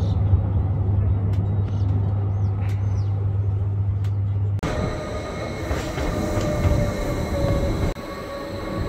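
Ride aboard an electric train: a steady low hum, then after a sudden change about halfway, a rumble with a whining motor tone that slowly falls in pitch.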